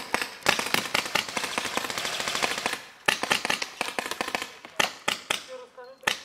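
Paintball markers firing in rapid strings of sharp pops, with a short break about three seconds in and fewer shots near the end, where a voice calls out.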